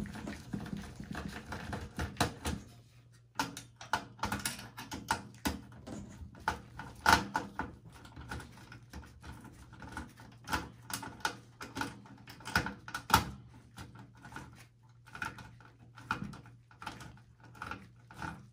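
Hand screwdriver working screws around the CPU cooler and motherboard of a desktop PC's steel chassis: irregular light clicks and metal taps, with a few sharper knocks.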